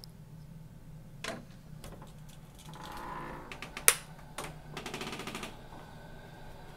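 A wooden door being opened by its handle: a run of clicks and rattles from the handle and latch, with one sharp, loud click about four seconds in and a quick rattle just after it.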